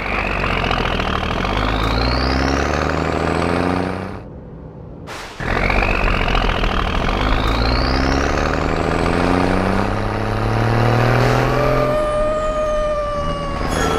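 Cartoon truck engine sound effect revving up twice, its pitch climbing steadily each time, with a short break between. Near the end it gives way to a steady held tone with a falling whistle above it.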